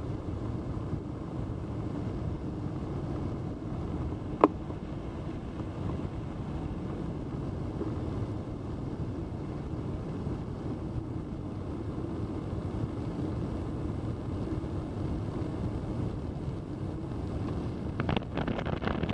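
Steady rush of airflow over a hang glider in flight, buffeting the microphone. A single sharp click about four seconds in, and rougher, louder gusts in the last second.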